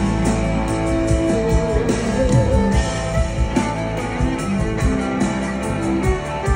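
Live band playing an instrumental break of a country-rock song: guitars over drums, with no singing.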